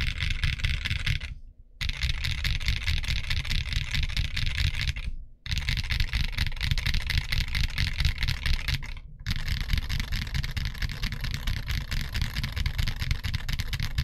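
Continuous fast typing on a TG67 v3 mechanical keyboard with Kinetic Labs Salmon tactile switches and dye-sub PBT keycaps: a dense run of key clacks. It breaks off briefly three times.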